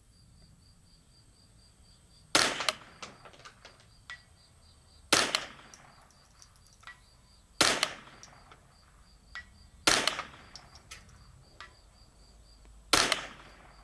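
Five shots from a Voodoo 360 bolt-action .22LR rifle, two to three seconds apart, with lighter clicks between shots. Faint, regular cricket chirping underneath.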